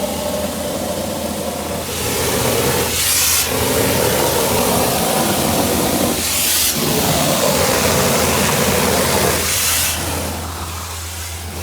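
A heavy engine running steadily on concrete-pouring equipment, with a short loud hiss about every three seconds.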